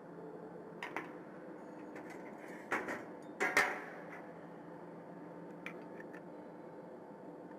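A few light clicks and metallic clatters of small parts being handled, the loudest a little past the middle, over a steady faint hum.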